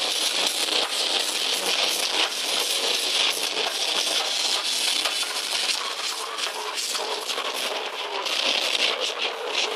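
Death metal band playing live, picked up as a dense, distorted, crackling wall of guitars and drum hits with almost no bass.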